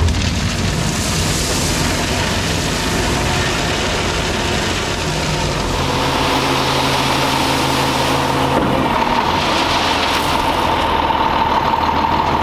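Dump truck's diesel engine running steadily, with a steady high whine joining in about halfway through.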